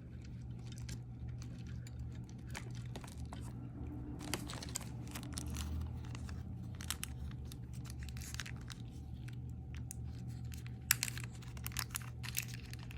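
Small clicks and plastic crinkling from jewelry being handled and a small plastic bag being worked, with scattered sharper clicks near the end, over a steady low hum.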